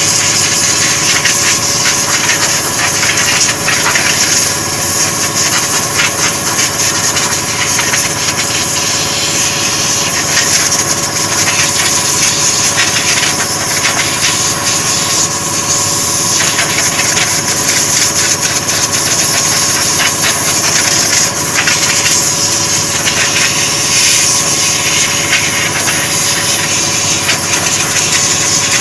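Compressed-air spray gun hissing steadily as silver chrome solution is sprayed onto a steel wheel, over the steady hum of an air compressor running.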